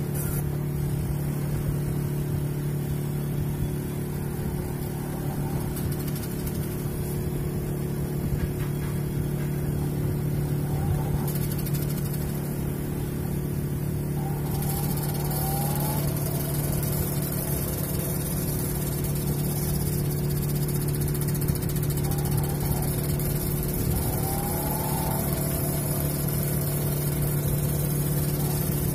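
Semi-automatic washing machine motor running under the tub with a steady hum, its shaft turning, with a few faint short rising squeaks now and then. The repairer later finds the machine's buffer faulty.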